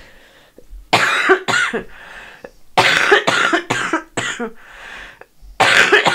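A woman coughing hard into her arm in three bouts of several coughs each: a cough from a bad sinus infection with post-nasal drip.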